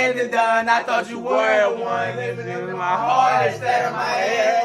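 Male voice singing a melodic line over a music track, with low bass notes held for about a second at a time.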